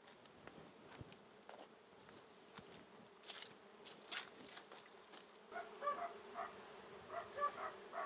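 Honeybees buzzing around an open hive: a faint, steady hum that grows plainer about five and a half seconds in.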